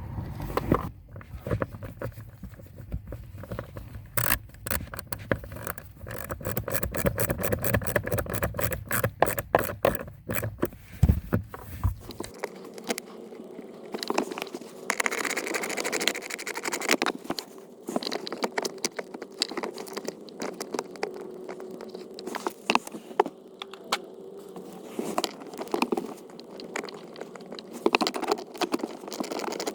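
Irregular scraping and clicking of small parts being handled, with a fast run of clicks for several seconds. A low hum underneath stops about twelve seconds in.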